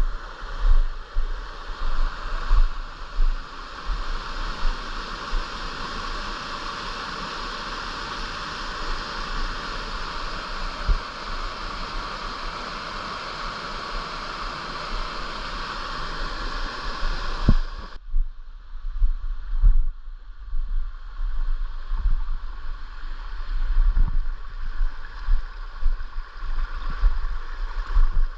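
Steady rush of flowing water from a mountain stream or waterfall, with wind buffeting the microphone in low thumps. About two-thirds of the way through, the sound changes abruptly and becomes duller.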